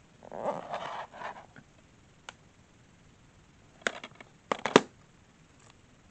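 A plastic DVD case handled on a wooden floor: a rustling brush across its cover near the start, then a quick run of sharp clacks as the case is flipped over and set down, the last clack the loudest.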